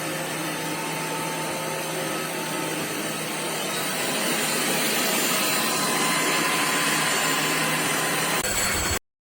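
DIFFULL V20 cordless stick vacuum running: a steady whir with a constant hum under it, growing slightly louder a few seconds in and cutting off suddenly near the end.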